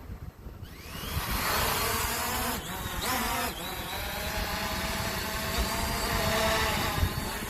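SG906 Pro 2 quadcopter's motors and propellers spinning up under a second in, then a steady whine with several pitches shifting slightly. Strong wind buffets the microphone throughout as a low rumble.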